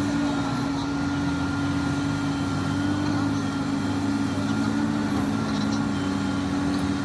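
Heavy construction-machine diesel engine running at a steady speed, a constant droning hum that holds one pitch throughout.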